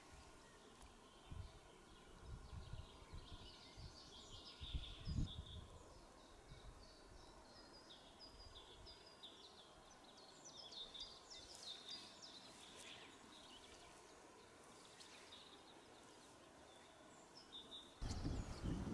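Faint birdsong: small songbirds chirping and trilling, with a few low thumps. A louder low rush sets in near the end.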